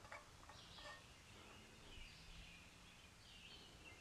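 Near silence, with faint short bird chirps in the background and a few faint ticks in the first second as the starter cord is handled.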